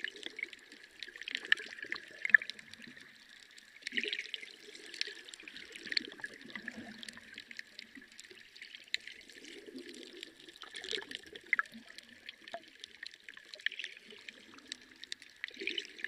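Water trickling and splashing in a reef aquarium's circulation, with a steady wash and many small irregular pops and splashes.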